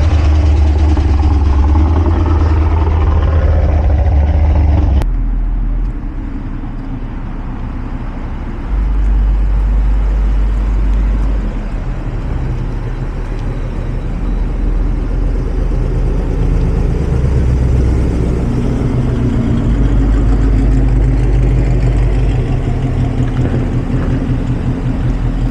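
Car engines running at low speed with a deep, low rumble, loud in the first five seconds. After an abrupt change the rumble is quieter, then swells several times as cars, Ford Mustangs among them, drive slowly past.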